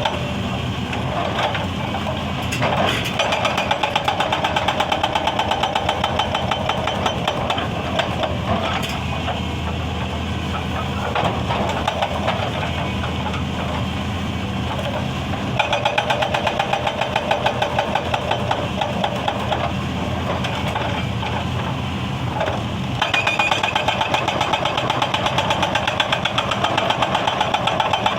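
Excavator-mounted hydraulic breaker hammering on stone in stretches of rapid, evenly spaced blows, with the excavator's diesel engine running steadily underneath and between them.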